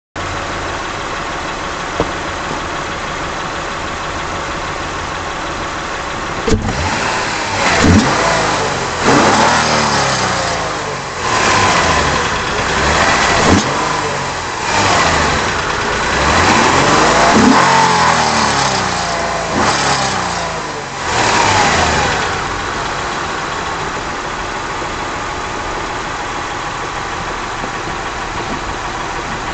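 Honda Accord's J30A4 3.0-litre V6 idling, then revved in about seven quick blips from about six seconds in, each rising and falling back, before settling to idle again. A loose heat shield on the catalytic converter rattles against it.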